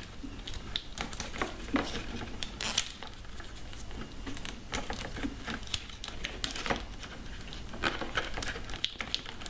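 Tape being unrolled and wrapped around the wiring connectors: a run of irregular crinkling and crackling clicks.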